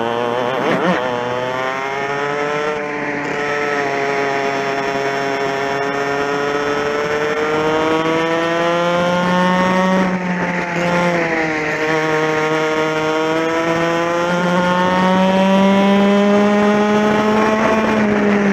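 TKM 100cc two-stroke kart engine at racing revs, heard from on board the kart. Its pitch dips briefly about a second in, then climbs slowly over several seconds. It drops sharply about ten seconds in, then climbs again toward the end.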